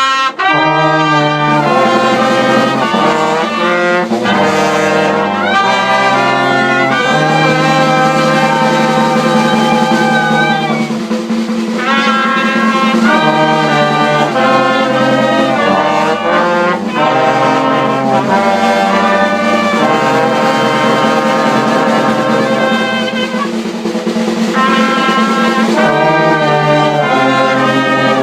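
Brass band music: several horns hold and change sustained notes over a low bass line that moves in steps.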